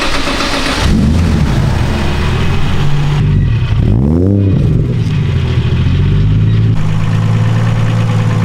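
Nissan S13 drift car's engine running at a low, steady speed, with one quick rev blip about four seconds in.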